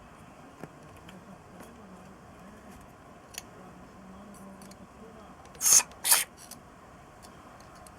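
Two short hissing spray bursts, a little over halfway through, over faint clicks of small parts being handled during carburettor cleaning.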